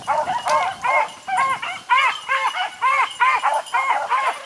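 Beagles baying on a rabbit's track: a rapid, unbroken run of short yelping calls, about three or four a second, overlapping at different pitches as more than one hound gives tongue.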